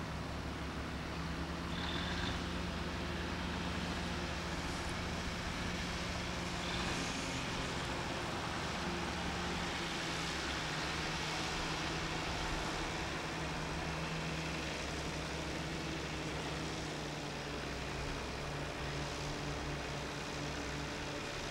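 Engine of a 70-ton lattice-boom crane running steadily as the boom swings the empty lifting cradle away.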